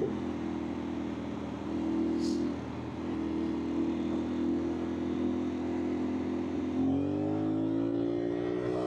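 CFMOTO 450SR parallel-twin engine running at steady revs under a rush of wind, then rising in pitch about seven seconds in as the bike accelerates.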